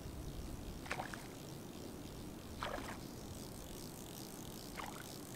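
Fly reel's click-and-pawl drag ratcheting in a few short bursts (about a second in, a longer one near three seconds, and two near the end) as line is reeled in while playing a hooked grayling, over a low steady rumble.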